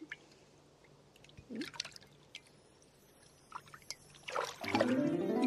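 Faint water sounds, a few small splashes and trickles with quiet in between. Music swells in about four seconds in.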